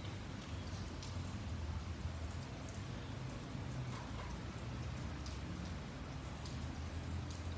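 Light rain falling steadily, with scattered individual drops pattering on a surface over a low steady rumble.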